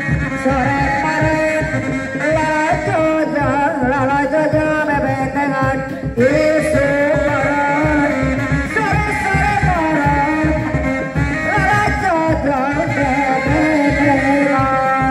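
Sundanese reak ensemble playing: dense, fast dog-dog and kendang drumming under a high, wavering, ornamented melody line.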